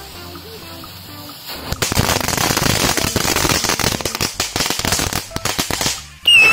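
Firecrackers going off: after a short lull, a dense rapid crackling starts about two seconds in and runs for about four seconds. Near the end comes a loud whistle that slides slightly down in pitch.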